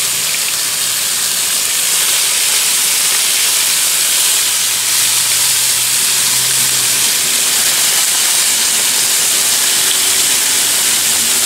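Raw bacon strips sizzling steadily on a hot Blackstone flat-top griddle as more strips are laid down onto the hot steel.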